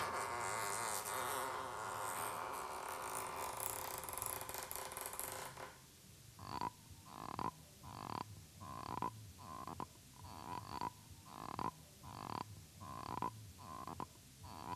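A strip of magnetic audio tape, pulled taut and worked, gives a long creaking-door sound for about five seconds. Then a cognac glass worked by hand gives short frog-like croaks, about one every three-quarters of a second, as a Foley frog effect.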